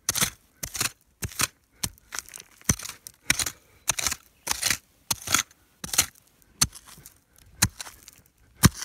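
A hand digging tool striking repeatedly into thick, sticky clay soil full of roots, in short strokes about one and a half to two a second; one sharper strike comes near the end.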